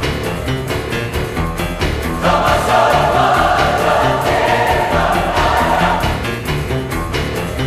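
Background music with a steady beat and a choir singing, the choir loudest in the middle.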